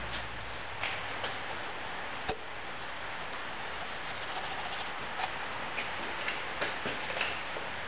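Moulding sand being sieved and poured into a wooden moulding flask: a steady hiss of falling sand with scattered light clicks and taps from the sieve and scoop. There is one sharper tap about two seconds in and a run of taps in the second half.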